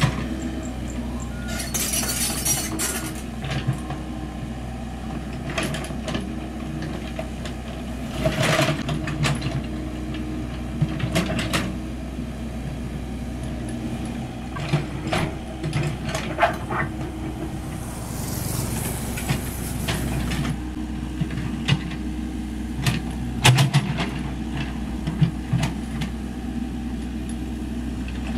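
Komatsu PC78US mini excavator's diesel engine running steadily under digging load, with scattered knocks and scrapes of the bucket working soil and brush, and a brief hiss about two-thirds of the way through.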